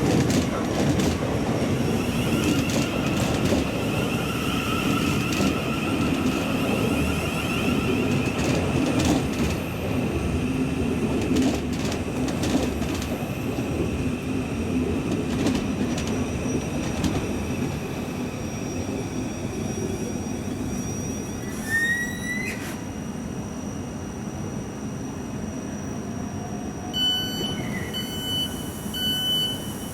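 Southeastern electric multiple-unit train at the platform, rumbling with a steady electric whine that fades. A short rising squeal comes about three quarters of the way through, then the train's door-warning beeps sound near the end, the signal that the doors are about to close.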